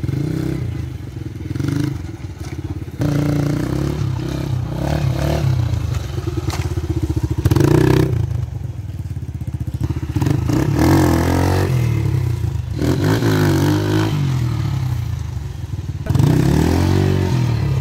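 Rusi XL off-road motorcycle's engine running and revving as it is ridden, its pitch rising and falling several times, with sudden jumps in level about three seconds in and again near the end.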